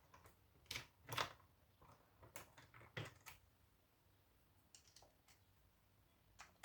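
Faint, scattered clicks and light taps of a drill bit and small metal parts being handled, as the bit in a cordless drill is swapped for a different one.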